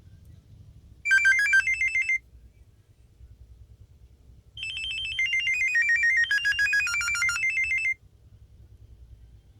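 Nokia 6230b mobile phone playing ringtone melodies through its built-in speaker. A short phrase of high beeping notes sounds about a second in, then a longer melody steps downward in pitch from about four and a half to eight seconds.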